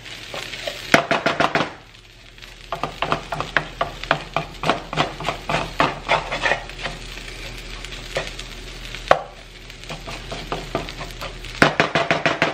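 Wooden spatula scraping and tapping against a skillet in quick runs of short strokes as frying shredded potatoes and onions are stirred and turned. The potatoes are sticking to the worn nonstick pan and are being scraped loose.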